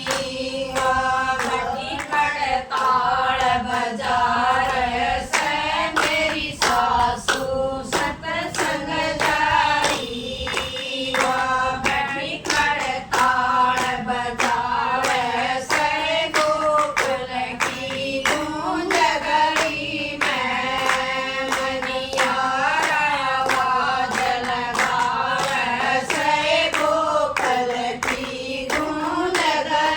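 Group of women singing a Haryanvi folk bhajan in unison, accompanied by steady hand clapping that keeps the beat.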